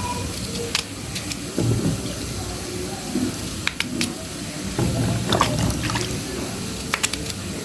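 Water splashing and pouring, with scattered sharp clicks and knocks of things being handled in it.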